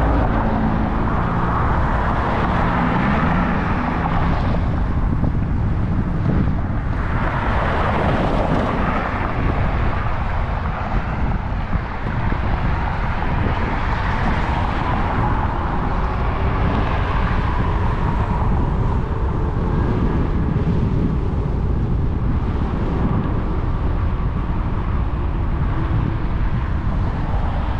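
Noise from riding an e-bike: a steady low rumble of wind and tyre noise, with road traffic swelling up and fading off several times, most strongly about seven seconds in.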